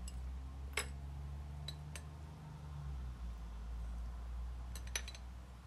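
Light clinks of a spoon on a glass bowl and of a dish as poppy-seed paste and chopped walnuts are scraped onto rolled dough: single clicks about a second in and around two seconds, and a quick cluster of clicks near five seconds, over a low steady hum.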